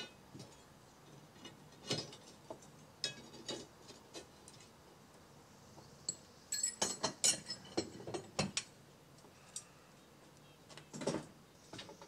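Steel leaves of an old carriage leaf spring clinking, knocking and scraping against each other as they are handled and pulled apart, with scattered clinks, a busier run of clatter about halfway through and another near the end.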